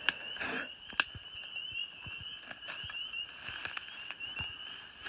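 A chorus of frogs calling steadily, with many short high-pitched notes overlapping. A couple of sharp clicks sound near the start, about a second apart.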